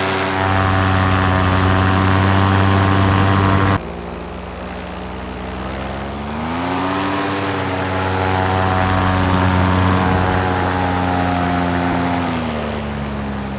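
Paramotor engine and propeller running steadily at cruise power in flight. About four seconds in the sound changes abruptly to a quieter engine, whose pitch rises as it is throttled up about six seconds in and falls back as it eases off near the end.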